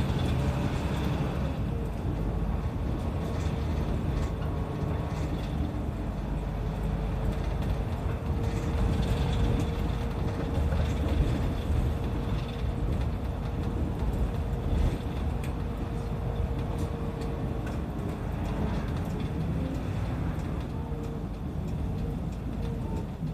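Kanachu route bus driving along, heard from inside the cabin: a steady engine and road rumble with faint rattles. A steady whine runs through most of it and stops past the middle.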